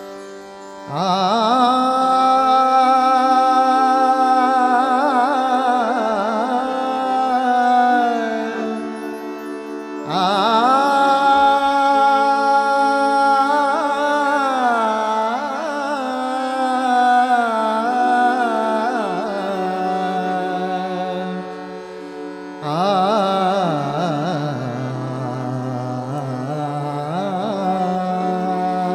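Male Hindustani classical vocalist singing three long, ornamented held phrases that glide and waver in pitch, over a steady drone. Each phrase enters abruptly, about one, ten and twenty-two seconds in.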